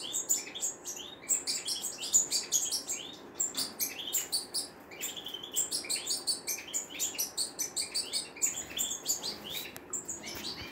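European goldfinches singing: a rapid, unbroken twittering of short high chirps and quick arching notes.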